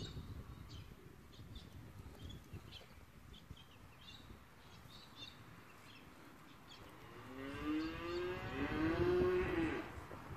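A cow mooing, one drawn-out call in two rising-and-falling parts starting about seven seconds in, over a faint low rumble and scattered high chirps.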